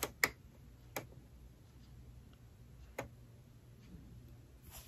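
A few faint, sharp, irregularly spaced clicks from a piece of quilting cotton being handled while it is held up.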